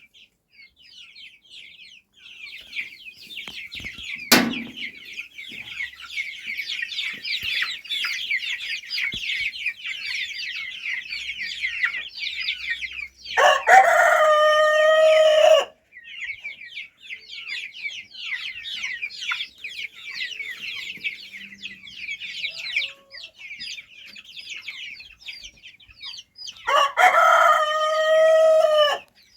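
Rooster crowing twice, each crow about two and a half seconds long and the loudest sound, over a continuous high chatter of chickens clucking and chirping. A single sharp knock a few seconds in.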